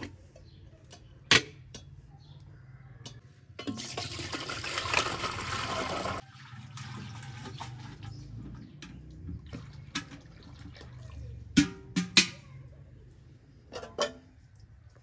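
Liquid poured in a steady stream from an aluminium jug into a metal pot for about two and a half seconds, cutting off abruptly. Sharp clanks of aluminium lids and pots come about a second in and again as three quick clanks later on.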